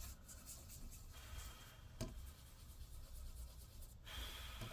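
Faint rubbing of a paper towel wiping old, stuck thermal paste off a laptop's chip and heatsink with isopropyl alcohol, with a light tap about two seconds in.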